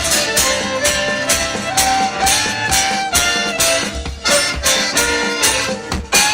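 Live band playing a fast country-rock instrumental, a fiddle carrying the tune over a quick, steady drum beat.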